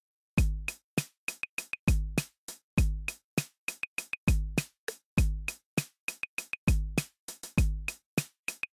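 Electronic background music: a drum-machine beat of deep, booming kick drums with sharp, bright hits between them.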